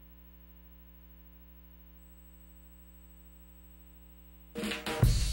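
Faint steady electrical hum with a thin high whine joining about two seconds in, then loud opening theme music starts abruptly about four and a half seconds in.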